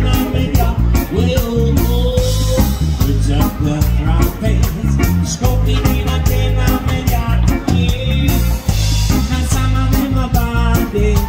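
Live reggae band playing an upbeat groove: drums with a steady cymbal beat, bass and electric guitar, with a voice singing over it.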